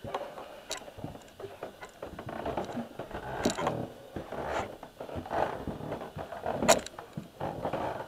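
Footsteps climbing wooden stairs: irregular knocks and scuffs of feet on the treads, mixed with clothing rustle and handling noise.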